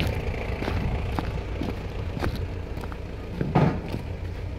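Footsteps on loose river stones and gravel, about two a second, over a steady low rumble, with one louder knock about three and a half seconds in as the walker reaches the asphalt drums.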